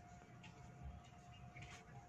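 Near silence: faint room tone with a thin steady tone and a few soft clicks.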